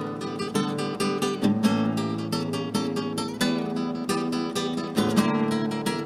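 Acoustic guitar played in a quick, unbroken run of plucked notes and strums.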